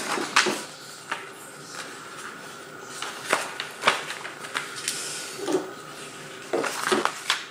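Handling noise of unboxed kit parts on a wooden tabletop: scattered clicks and knocks with plastic-bag rustling as a bagged part and a black power adapter with its cord are picked up and moved, with a cluster of knocks near the end.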